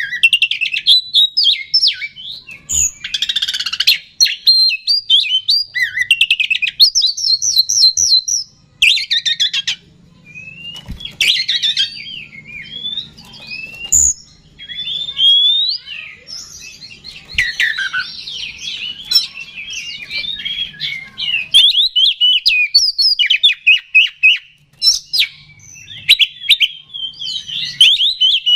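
Male Oriental magpie-robin (kacer) singing loudly and almost without a break. Its varied song mixes clear whistles, sliding notes and fast rattling trills, the excited, aggressive full song (gacor) used as a lure call to provoke other magpie-robins.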